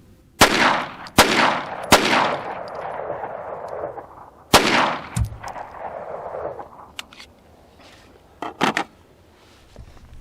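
Four .22 LR pistol shots from a Walther P22 Q firing Federal Punch 29-grain flat-point rounds: three about three quarters of a second apart, then a fourth about two and a half seconds later, each followed by a short echo.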